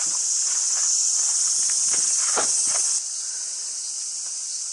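Loud chorus of cicadas, a steady high-pitched drone that drops in level about three seconds in. A dull thump a little before the drop, with a few fainter knocks.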